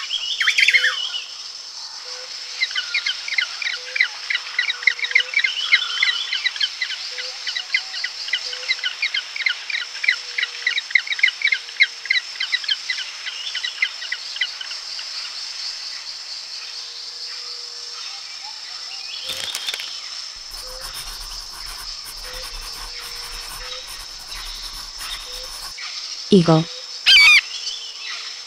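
Penguins calling: a fast run of short, harsh calls, several a second, that lasts about ten seconds and then thins to fainter scattered calls and clicks. Near the end comes a short falling whoosh and a brief high sound.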